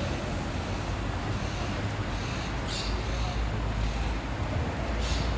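City street ambience: a steady low rumble of road traffic, with two brief high hisses, one a little past halfway and one near the end.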